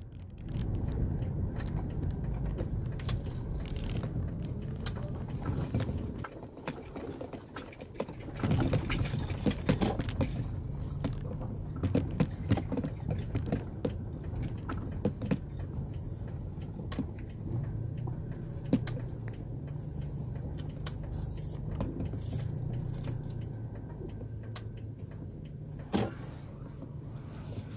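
Car engine and tyre rumble heard from inside the cabin while driving: a steady low rumble with scattered light clicks and knocks.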